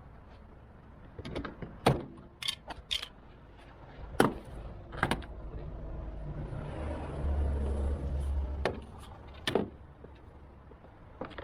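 Sharp clicks and knocks from a car door's interior trim panel and hand tools as the panel is pried loose, about seven spread through, with a low rumble lasting about two seconds in the second half.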